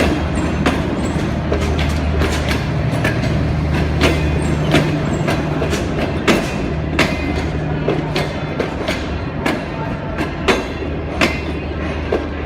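Passenger train rolling through a station, its steel wheels clacking over rail joints about once or twice a second over a steady low drone.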